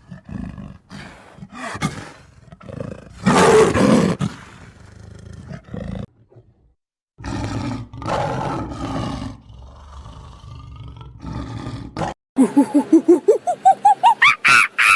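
A big cat roaring and growling in a series of rough calls, loudest about three to four seconds in. Near the end it gives way to a fast run of short, pitched calls from another animal that climb in pitch.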